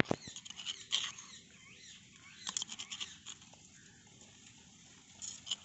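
A metal spoon scraping and clicking against a small stone mortar as ground mash is scooped out, in short bursts of scrapes. Birds chirp in the background.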